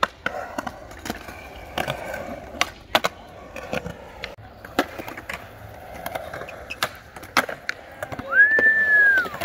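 Skateboard rolling over concrete, with repeated sharp clicks and clacks of the wheels and board. Near the end comes a brief high-pitched tone, about a second long, that rises and then falls back.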